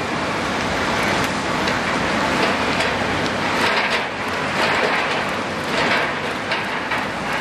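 Caterpillar 320D L hydraulic excavator digging: its diesel engine runs under load while the steel bucket scrapes through wet, gravelly dirt, with soil and stones crunching and spilling in repeated surges.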